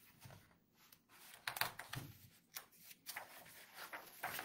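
Faint paper rustles and soft taps as a hardcover picture book is handled and a page is turned, a few short scattered sounds.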